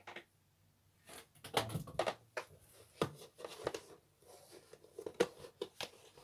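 A plastic microgreens growing tray being picked up and handled: a run of light clicks, knocks and rustles of plastic, starting about a second in.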